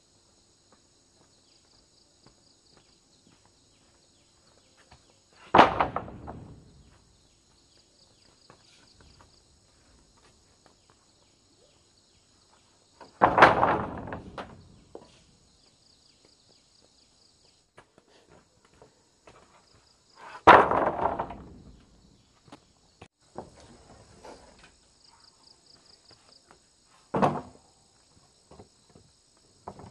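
Four heavy single knocks on wood, about seven seconds apart, each dying away over a second or so, with insects chirring steadily and faintly in the background.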